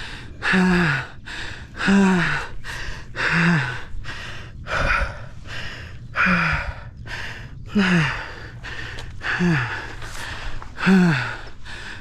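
A man winded after a bike crash, gasping for air: about seven short groaning breaths out, each dropping in pitch at its end, with noisy breaths in between. It is the sound of having the wind knocked out of him by landing on his side.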